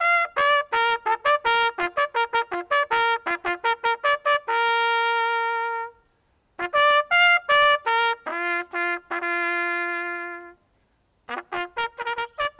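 A solo bugle call on a brass horn: quick tongued notes on a few pitches, each run ending in a long held note. The call breaks off briefly twice, then resumes with quick notes near the end.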